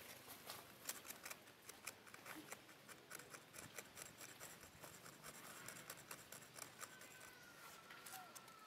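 Near silence with faint, irregular clicks and crackles, a macaque handling and eating fruit on dry leaves. A faint thin whistle, falling slightly, comes in near the end.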